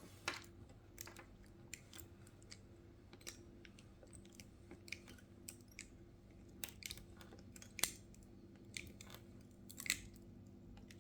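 Faint, irregular crackling and scratchy clicks as a cutting tool works through the layers between an iPhone 7's front glass and its LCD, over a low steady hum.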